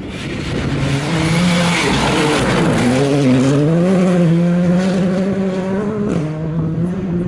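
Rally car driving hard close by. There is a loud rush of noise in the first couple of seconds, then the engine note rises and falls through gear changes, dropping about six seconds in.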